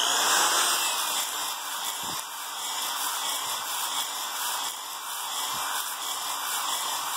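Cordless drill spinning a flexible ball hone inside a cylinder bore of a Mercedes OM617 diesel block: a steady hissing whir of the abrasive balls scrubbing the bore wall. The cylinder is being honed to a roughly 25-degree crosshatch.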